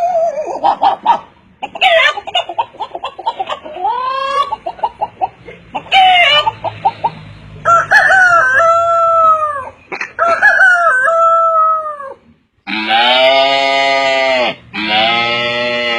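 A person imitating chickens with the voice: a run of short hen clucks, then crowing calls like a rooster's, the last two long and loud.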